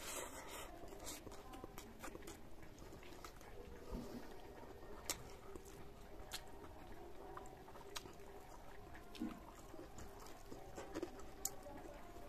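Close-up eating sounds: a man chewing a mouthful of rice with his mouth, with scattered wet clicks and smacks, over a faint steady hum.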